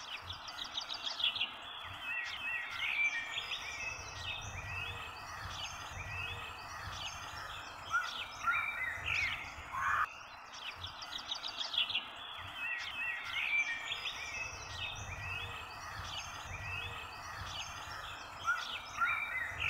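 Birds chirping and twittering over a steady background hiss, a nature ambience that repeats after about ten seconds.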